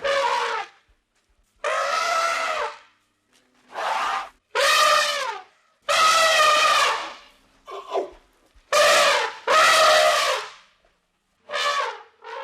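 An animal's loud, brassy calls repeated about eight times, each lasting up to about a second and dropping slightly in pitch at the end.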